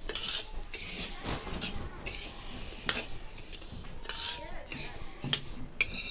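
Steel ladle stirring flaxseeds as they roast in a metal kadhai. The seeds make a gritty scraping rustle with each stroke, and the ladle clinks sharply against the pan a few times.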